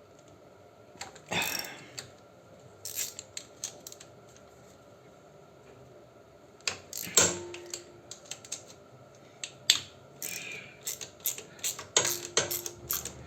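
Socket ratchet clicking and metal tools clinking while stuck cover screws on a 125Z motorcycle engine are worked loose: scattered groups of sharp clicks that come thick and fast near the end, with two brief squeaks.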